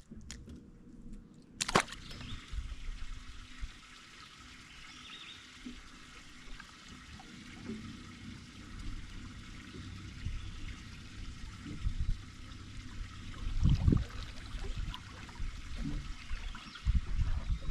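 Water trickling steadily, starting just after a sharp click about two seconds in, with a few low thumps near the end.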